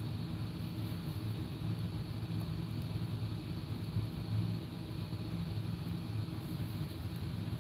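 Steady low mechanical hum with an even pitch that does not change.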